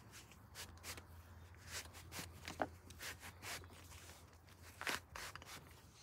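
White cloth rag rubbing along wet seatbelt webbing in irregular wiping strokes, wiping dirt off the soaked belt; the loudest stroke comes about five seconds in.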